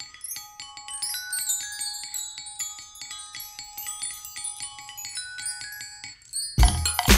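Electropop backing track: a high, quick tinkling melody of short ringing notes, then about six and a half seconds in a full beat comes in with heavy kick drums.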